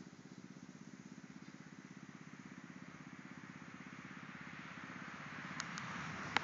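Go-kart engine running steadily out of sight, growing louder over the last couple of seconds. A few sharp clicks near the end, the last one the loudest.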